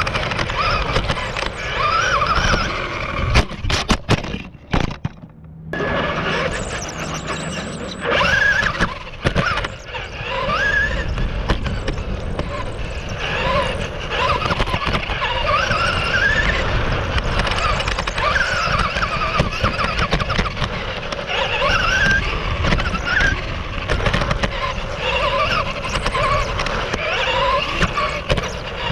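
RC car driving on a dirt track, heard from a camera mounted on the car: its motor whines up and down in pitch with the throttle over a constant rush of tyre and chassis noise. A few sharp knocks come about three to five seconds in, followed by a brief drop in the sound.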